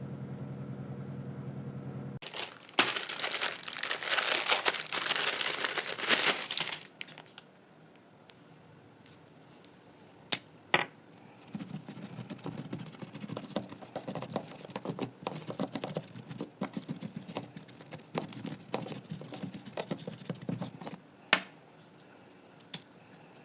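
A steady musical tone stops about two seconds in. Plastic packaging crinkling and being torn, loudest for several seconds early on, then a few sharp clicks and a longer spell of quieter crinkling and rustling.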